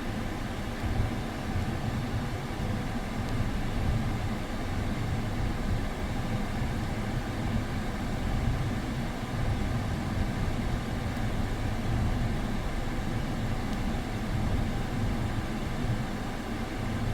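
Hyundai Avante engine idling steadily with the air conditioning running, at the end of a refrigerant recharge.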